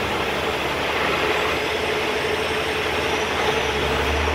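Truck engine running steadily at a constant speed, with an even hum and a low rumble.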